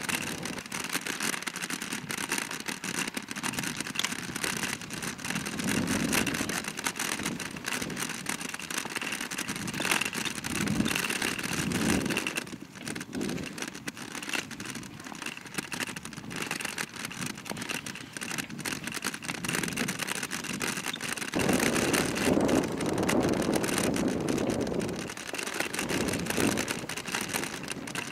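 Kick bike rolling along an unpaved forest path: a steady rumble and rattle from the wheels and frame. The rumble grows heavier in stretches, most strongly for a few seconds past the twenty-second mark.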